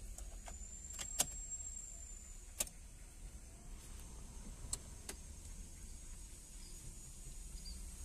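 A few sharp clicks over a faint low hum and a thin steady high whine in a parked Honda City's cabin, ignition on with the warning lights lit and the engine not yet cranking.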